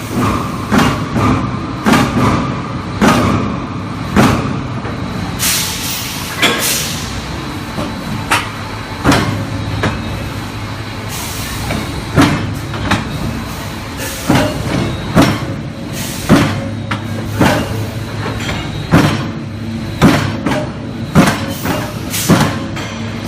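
Automatic refractory brick press running: a steady low machine hum with sharp knocks and clanks about once or twice a second as it works through its forming cycles.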